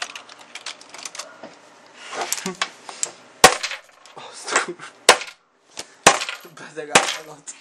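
Computer keyboard typing in quick light clicks, then four sharp knocks about a second apart, with handling and rustling noise between them.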